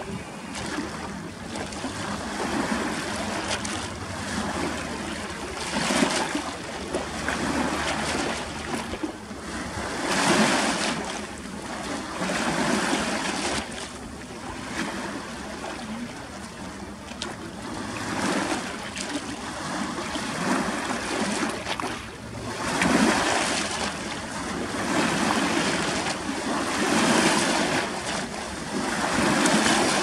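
Sea waves breaking and washing on the shore, the rush of surf swelling and falling back every few seconds.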